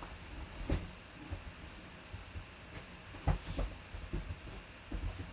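Handling noise of objects being moved and set down: several dull knocks and thumps, the loudest a little past the middle, with low rumbling and shuffling in between.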